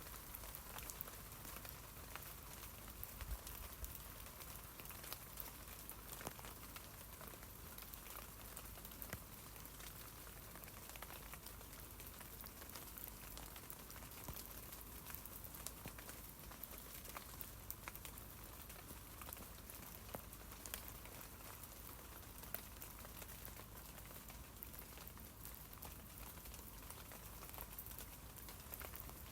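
Rain falling on tree leaves: a steady patter of many small, irregular drop hits over a soft hiss, with a low background rumble.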